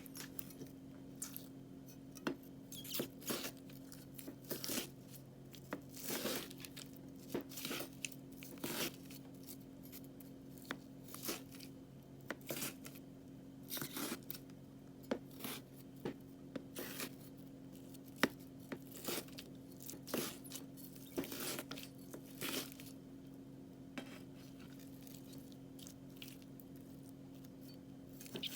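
Crunchy ('shaki-shaki') slime being handled and cut, giving irregular crackles, snaps and tearing sounds every second or so, over a faint steady hum.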